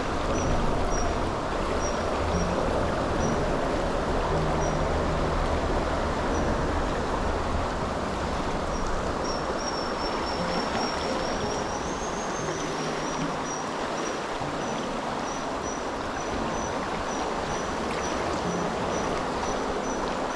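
Fast-flowing river rushing past, a steady noise of running water. A high, thin peep repeats above it, drawn out into a wavering whistle for a few seconds near the middle.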